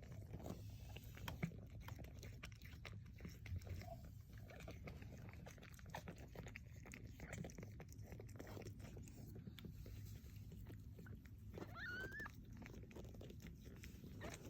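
Faint wet licking and chewing sounds from a mother cat cleaning her newborn kittens just after birth, with many small soft clicks. Near the end, one short high rising squeak from a newborn kitten.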